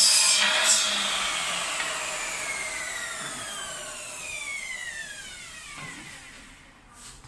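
An electric power tool's motor winding down after being switched off. Its whine falls steadily in pitch and fades over about six seconds, from a loud start.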